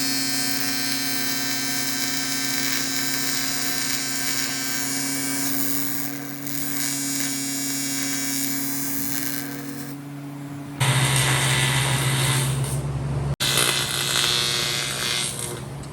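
A handheld electric power tool running steadily, a motor hum with a grinding hiss, then, after an abrupt change about eleven seconds in, a louder, harsher run of a power tool.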